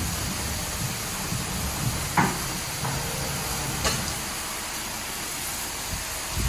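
Superior Sidetrac 700 touch-free car wash spraying water under high pressure against a car, a steady hiss, with two brief knocks about two and four seconds in.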